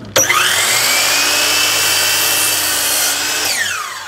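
Sliding miter saw starting up with a rising whine and cutting through the ends of stacked cedar fence pickets. Near the end its blade winds down with a falling whine.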